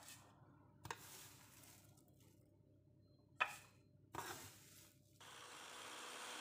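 A few separate clinks and knocks of kitchenware being handled, then a steady hiss sets in about five seconds in.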